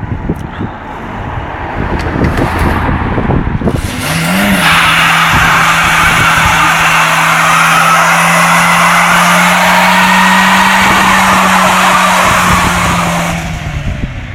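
Renault Mégane 1.6's four-cylinder engine revs up about four seconds in and is held at steady high revs while the front tyres spin and screech on the tarmac in a burnout. The screech stops about a second before the end as the tyres grip and the car pulls away.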